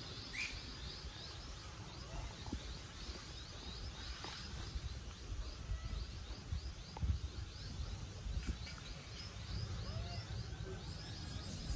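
Outdoor ambience: short, high chirps repeating evenly at about four a second, over a low rumble.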